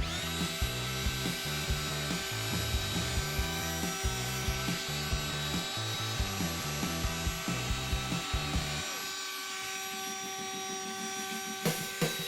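Power drill spinning a sanding pad against a plastic headlight lens, a steady motor whine with rubbing. Background music with a beat plays under it and drops out for a few seconds near the end.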